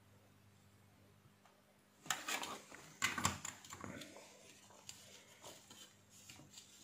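Hands handling the opened plastic casing of an electric bug-zapper racket and its small circuit board: clusters of clicks, clatter and rustling starting about two seconds in, loudest in two bursts, then fading to scattered ticks. A faint low electrical hum sits under it.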